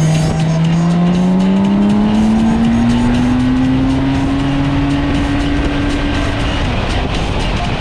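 Motorcycle engine pulling under throttle while riding, its pitch rising steadily for about six seconds as the bike accelerates, then dropping away near the end as the throttle is rolled off or a gear is changed. Wind rush lies underneath.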